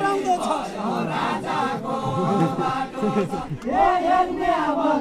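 A group of men and women singing a Deuda folk song together, unaccompanied, in a drawn-out chanted melody; one phrase fades and a new one begins about three and a half seconds in.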